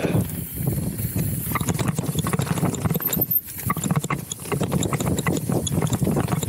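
Downhill mountain bike rolling fast down a rocky trail, its tyres crunching over stones and the bike rattling and clicking with every bump. The rumble drops briefly about three seconds in.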